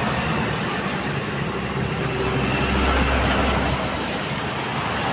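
Bus passing on the road over steady traffic noise, its deep engine rumble swelling about three seconds in.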